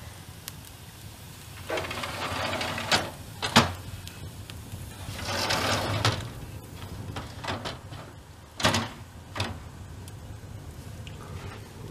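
Metal-framed fireplace doors being slid open by hand: two scraping slides in their track, each ending in sharp metal clacks, then two more clacks a few seconds later.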